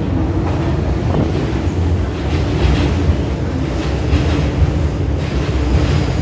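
MTR Kwun Tong Line Q-Train, a Hyundai Rotem electric multiple unit, pulling into the platform and running close past: a steady rumble of wheels on rail.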